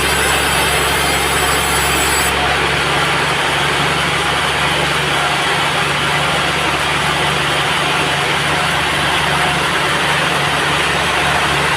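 Band sawmill running steadily with a low engine hum, the blade cutting through a teak log. The high hiss drops off abruptly about two seconds in.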